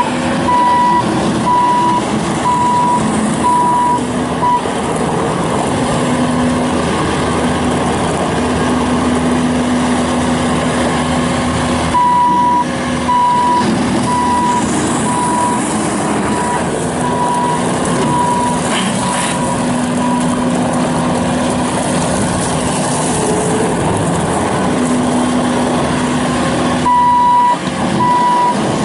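Bobcat S750 skid steer loader's diesel engine running steadily, with its backup alarm beeping in three stretches as the machine reverses: at the start, in the middle and near the end.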